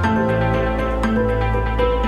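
Background music: gentle new-age style track with sustained notes over a held bass, the bass changing at the start.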